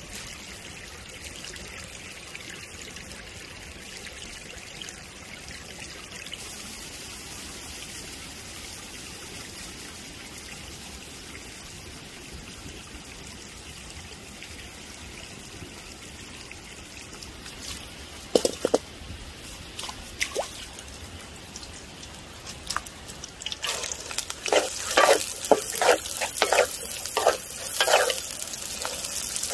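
Braised pork legs simmering in a pan of sauce, a steady bubbling hiss, with a few sharp clicks past the middle. About three-quarters of the way through it changes to chopped green beans sizzling in a hot wok, stirred with a wooden spatula that scrapes the pan about twice a second.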